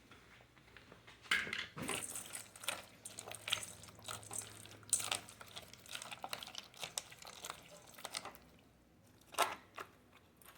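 Raw chicken organ meat being mixed in a container: irregular crinkling, scraping and clicking from about a second in, with a couple of sharp clicks near the end.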